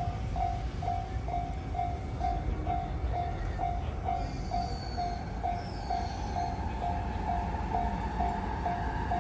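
Japanese railroad crossing warning bell ringing steadily at a little over two strikes a second, over the continuous low rumble of a passing train.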